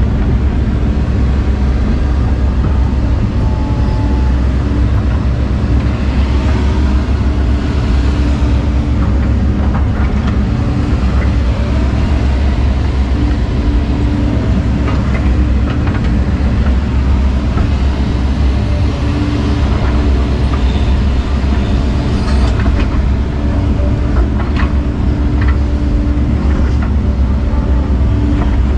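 Heavy diesel earthmoving machine running steadily under load, a deep drone with a steady whine, and scattered clanks and knocks from the machine at work.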